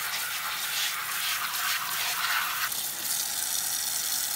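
Kitchen tap running, its stream splashing onto poblano peppers in a plastic colander in the sink. The splash changes character a little under three seconds in.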